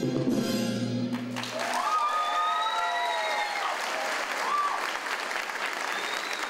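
Salsa music ends abruptly about a second in, and the audience breaks into applause and cheering.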